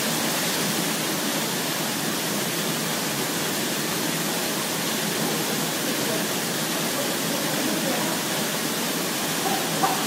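A small waterfall pouring steadily into a plunge pool, an even, unbroken rush of falling water.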